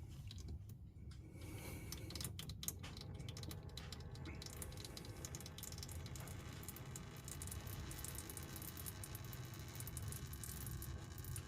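Faint small clicks and rattles in the first few seconds as the loosened oil filter is turned by hand, then a faint steady patter of oil running out of the filter housing into the drain pan.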